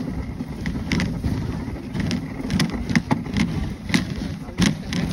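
Dog sled running along a snow trail behind its team: a steady low scraping rumble from the runners on the snow, broken by irregular sharp clicks and knocks several times a second as the sled rides the bumps.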